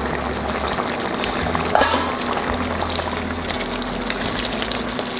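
Chicken curry gravy simmering in the pot with a steady bubbling hiss, under background music with a slow bass line.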